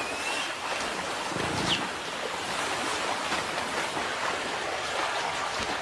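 Shallow river water rushing over a stony bed, a steady hiss of flowing water, with two brief faint high chirps in the first two seconds.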